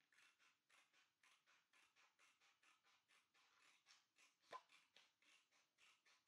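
Scissors snipping through thin recycled cardboard in short, even strokes, about four a second, faint, with one sharper click about four and a half seconds in.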